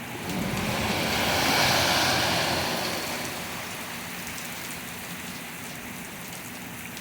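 Steady heavy rain on the ground, with a car driving through flooded street water: a rushing splash that swells over the first two seconds and fades away.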